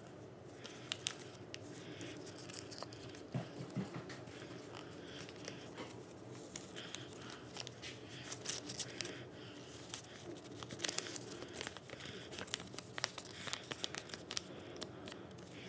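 A sheet of paper being folded and creased by hand into a paper airplane: irregular crinkling with many short, sharp crackles as the folds are handled and pressed.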